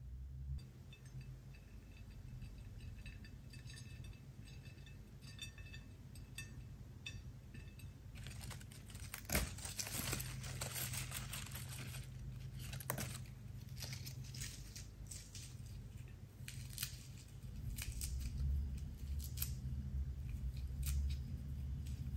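Fresh basil leaves torn by hand over a plate of spaghetti: a run of soft crackles and snaps that thickens from about eight seconds in, after a few faint light ticks, over a steady low hum.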